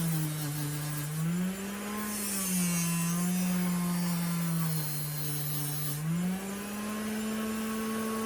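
Bench grinder with a 3-inch fiber wheel running while it takes surface rust off a pocketknife blade. Its motor hum dips and rises in pitch a few times, with a rough scrubbing hiss over it.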